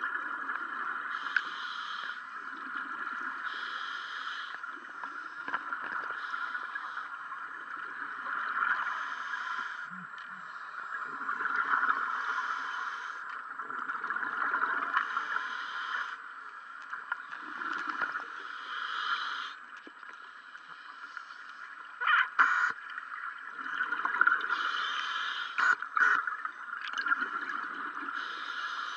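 Scuba breathing heard underwater: exhaled regulator bubbles come in bursts every few seconds over a steady hiss. A few sharp knocks come about three-quarters of the way through.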